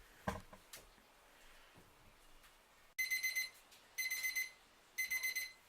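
Kitchen timer going off about three seconds in: short bursts of rapid high beeps, one burst about every second, signalling that the sausage's cooking time is up. A couple of faint knocks come before it.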